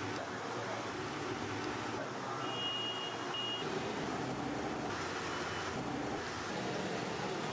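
Steady background din of traffic and surroundings, with a short high beep, broken once, about two and a half seconds in.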